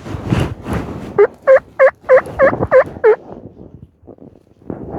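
Turkey yelping: a run of seven evenly spaced, descending yelps, about three a second, lasting about two seconds.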